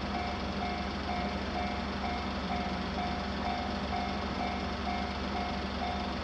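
Japanese railroad crossing warning alarm ringing, one tone repeating evenly about twice a second, over a steady low hum.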